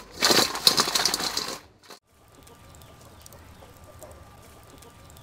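Fried chicken drumsticks being shaken and tossed in a steel mixing bowl: a fast, loud rattling and scraping that cuts off after about a second and a half. After that, only faint scattered ticking remains.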